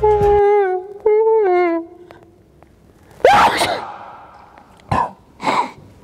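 A short music phrase ends about two seconds in. About a second later comes one loud sneeze, a rising pitched 'ah' that breaks into a noisy 'choo', followed by two shorter sharp noisy bursts.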